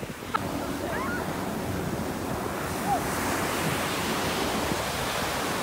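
Ocean surf breaking and washing up a sandy beach, the rush of foam building about a second in and staying strong through the rest.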